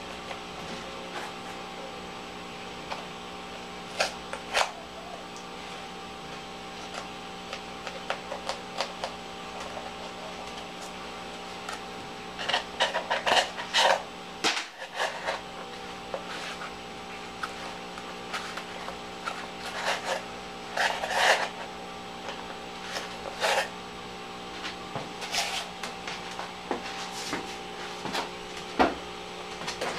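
Handling noises from crafting with a foam-board box and plastic parts: scattered clicks, taps and short scraping and rubbing sounds, bunched into two busy spells around the middle, over a steady low hum.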